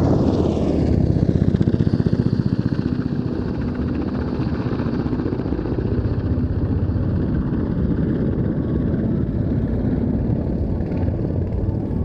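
NH90 transport helicopter in flight, its main rotor chopping steadily, with a whine that falls in pitch over the first couple of seconds as it passes.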